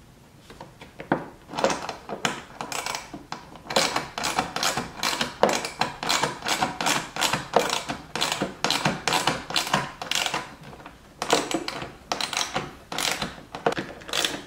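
Hand ratchet clicking in quick runs of strokes, tightening bolts up into a car's rear bumper. It pauses briefly about ten seconds in.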